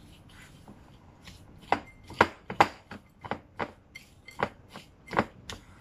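Granola mixture of oats with almond butter being stirred in a glass mixing bowl: a utensil knocks and scrapes against the bowl in irregular strokes, about two or three a second, starting about a second in.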